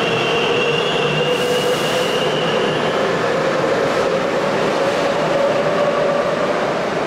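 Seoul Metro 2000-series electric train with IGBT VVVF drive accelerating out of the platform: steady rumble of wheels on rail, with a motor whine slowly rising in pitch as it gathers speed. A high-pitched squeal runs alongside and fades out about three seconds in.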